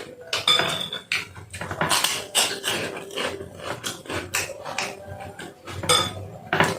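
A spoon clinking, knocking and scraping against a soup bowl during eating, in a string of irregular sharp clicks with a brief ringing scrape about half a second in.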